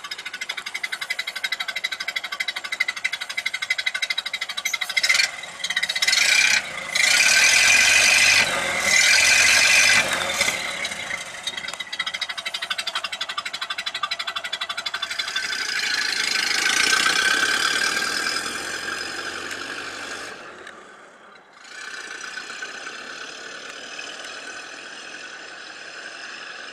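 1931 Ford Model A's four-cylinder flathead engine running with a quick, even beat, broken by several loud surges about five to ten seconds in. It swells again, then drops off sharply and carries on quieter as the car moves away.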